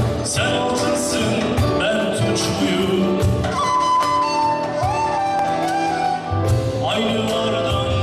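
Live music: a man singing into a microphone over an electric guitar, his voice wavering and gliding between held notes.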